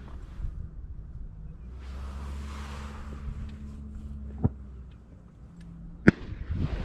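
Steady low rumble with a light click about four and a half seconds in and a loud, sharp crack about six seconds in.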